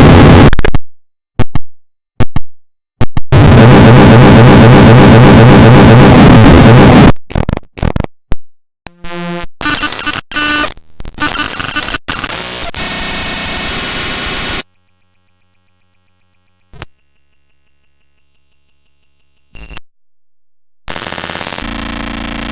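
A string of digital glitch sound effects. First come stuttering bursts of noise broken by sudden silences, then a loud harsh buzz lasting about four seconds and choppy cut-up fragments. After that come high steady tones, and quieter tones that swell up and cut off.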